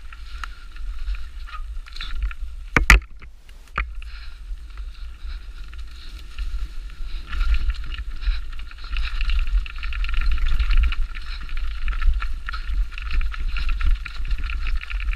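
2008 Specialized Demo 8 downhill mountain bike ridden fast down a trail, heard close up: constant clattering and ticking from the bike over rough ground, with low wind buffeting on the microphone. There are two sharp knocks about three seconds in and another a second later.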